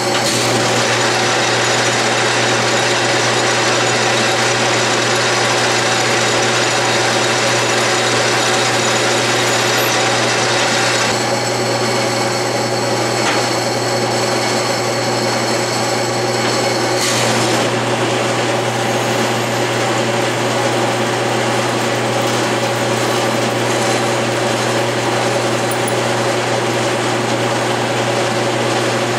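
Metal lathe running steadily while an aluminum slug is drilled from the tailstock: a continuous machine hum with several steady whining tones. The higher hiss thins out about eleven seconds in and comes back with a click some six seconds later.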